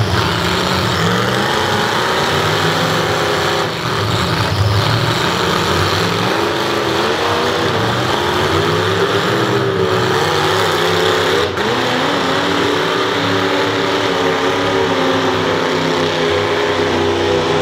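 Several demolition derby cars' engines revving and surging as they push and ram one another, with a few sudden knocks of bodywork hitting bodywork.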